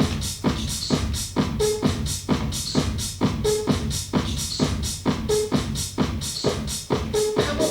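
Electronic dance music with a steady, fast drum-machine beat and a short synth note repeating about once a second.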